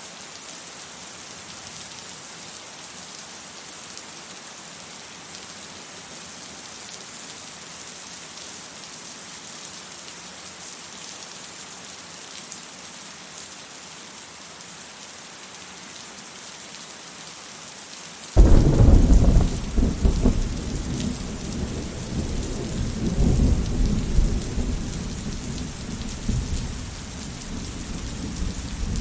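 Steady heavy rain hiss. About two-thirds of the way in, a sudden loud crack of thunder breaks into a deep rolling rumble that swells again and slowly fades under the rain.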